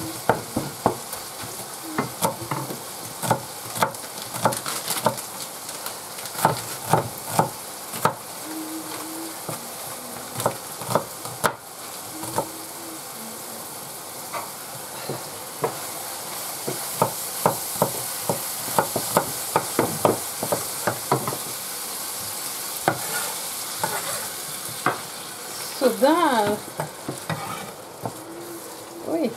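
Minced beef frying in a pan with a steady sizzle, a spatula clacking and scraping against the pan as it is stirred. A short wavering tone sounds near the end.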